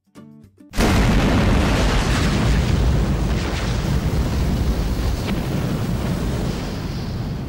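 Logo-intro explosion sound effect: a few short plucked notes, then a sudden boom about a second in, followed by a long rumble of fire that slowly fades.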